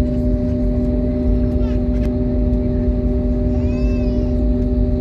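Airliner's jet engines and cabin air heard from inside the cabin as the plane moves on the ground: a steady hum of fixed pitch over a heavy low rumble. A faint short voice-like sound comes in just before the end.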